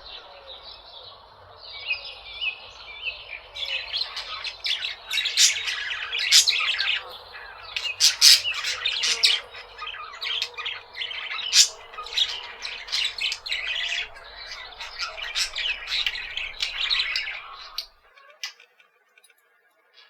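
A flock of aviary birds chattering, with many overlapping sharp chirps and squawks. It cuts off suddenly about two seconds before the end.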